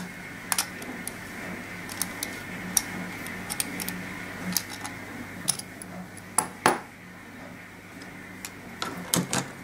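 Small plastic and metal clicks and taps as a battery is handled and pushed into the battery compartment of a BRIO toy locomotive, irregular, the sharpest clicks about two-thirds through and a few more near the end.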